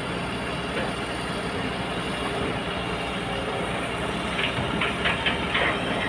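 Heavy earthmoving machine's engine running steadily, with a few short knocks near the end.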